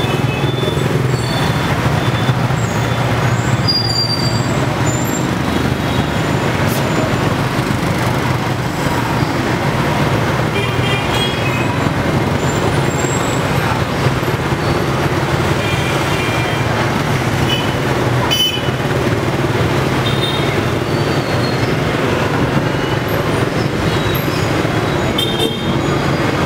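Busy street traffic of motorbikes and cars: a steady engine rumble with short horn beeps every few seconds.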